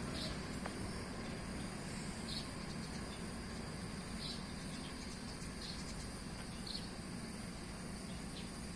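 Insects chirping: a steady high drone with short chirps every second or two, over a faint low rumble.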